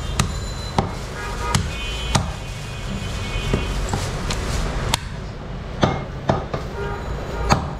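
Butcher's cleaver chopping beef on a wooden chopping block: about ten sharp chops at an uneven pace.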